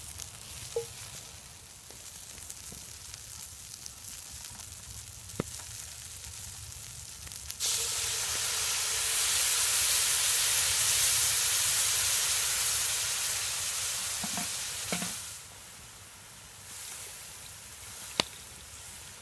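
Floured beef chunks sizzling quietly in a hot Lodge cast iron Dutch oven. About eight seconds in, water poured from a kettle hits the hot pot and a loud, sudden hiss of steam rises, holding for several seconds before it dies down.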